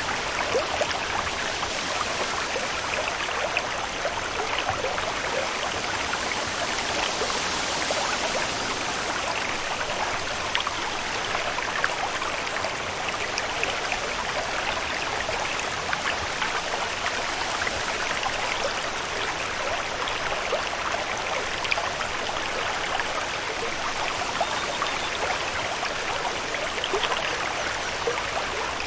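Steady rain: an even hiss of falling water dotted with many small drop ticks, unchanging throughout.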